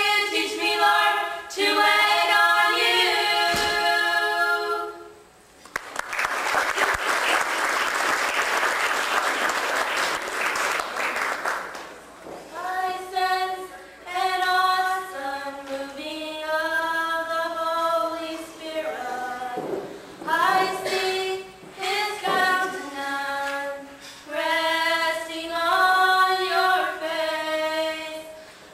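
Four girls singing a cappella. Their song stops about five seconds in, applause follows for about six seconds, and then they begin another song.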